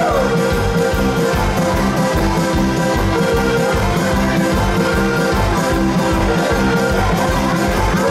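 Amplified diatonic button accordion playing an instrumental tune over a steady beat, with held chords throughout.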